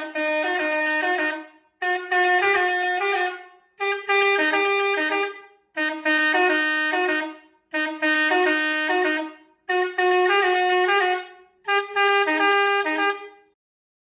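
hi-do Melody air horn sounding a short stepping tune of a few notes, blasted seven times in a row, about one blast every two seconds, each cut off after a second and a half.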